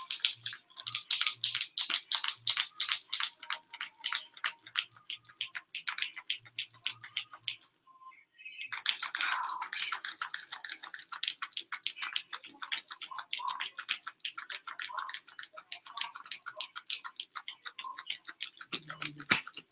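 A sheet of paper mail fanned rapidly back and forth close to the microphone, making quick, rhythmic flapping swishes with a short pause about eight seconds in.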